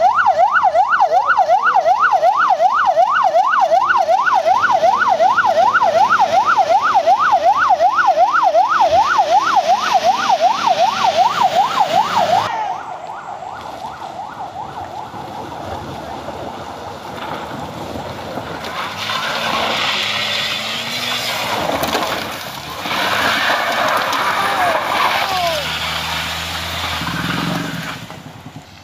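A siren in fast yelp mode, its pitch sweeping up and down about three times a second, cuts off about twelve seconds in. Engine and road noise from passing vehicles follows.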